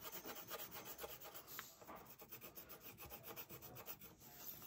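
Brown wax crayon rubbing on paper in quick, light back-and-forth coloring strokes, faint and scratchy.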